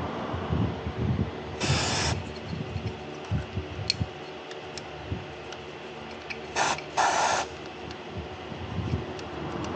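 Hand-tool work on a car engine: irregular knocks and clinks, with two short hissing bursts, one about two seconds in and a longer one about seven seconds in.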